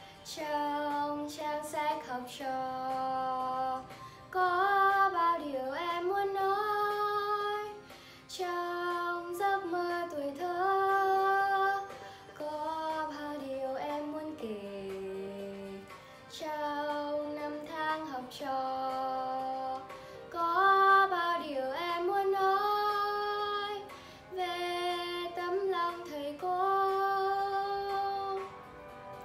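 A 13-year-old girl singing a slow Vietnamese song solo, in phrases of held notes with vibrato and short breaks between them, over a faint backing track.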